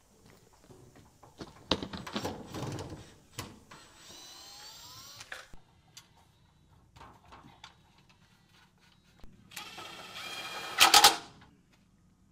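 Cordless drill whirring in short bursts, rising in pitch as it spins up, between knocks and clanks of metal parts being handled and fitted; the loudest is a short clatter near the end.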